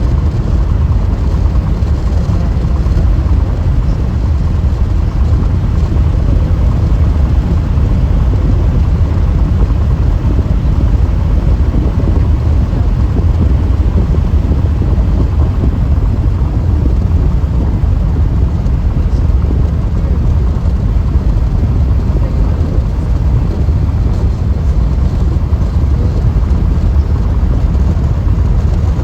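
Steady, loud tyre and road noise of a car travelling at freeway speed, mostly a low rumble that holds even throughout.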